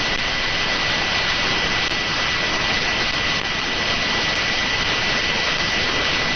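Medium-wave AM radio static from a software-defined receiver tuned to 1386 kHz: a steady hiss with a steady high whistle through it, and no station audible.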